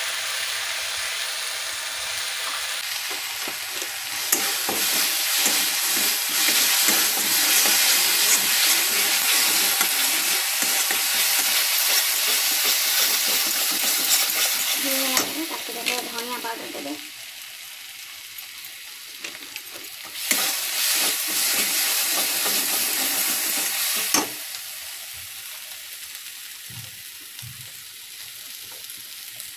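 Masala paste with chilli and turmeric powder sizzling in hot oil in a kadhai while a metal spatula stirs and scrapes it. The spices are in the frying stage of a fish curry base. The sizzle drops off abruptly a little past halfway, comes back for a few seconds, then settles to a lower sizzle near the end.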